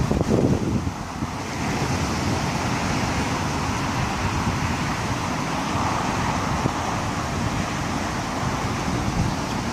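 Strong storm wind gusting, buffeting the microphone heavily in the first second, then a steady rushing that swells a little around the middle.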